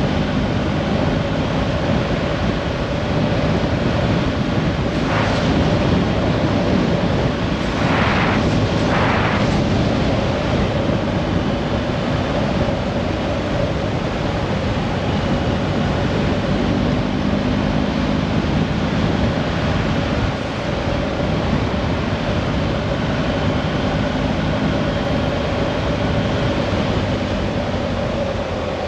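A motor running steadily with a constant hum, under an even rushing noise. Three short bursts of hiss come about five seconds in and again around eight and nine seconds.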